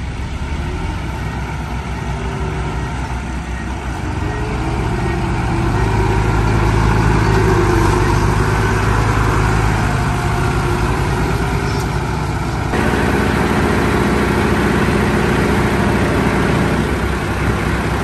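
Heavy diesel engine of earthmoving machinery running steadily, getting louder between about four and eight seconds in. The sound changes abruptly about thirteen seconds in.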